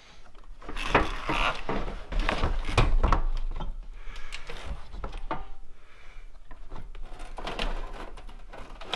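Irregular knocks, clunks and scraping of an aluminium radiator being worked loose and lifted out of a truck's engine bay, rubbing against the surrounding plastic shroud and intake parts.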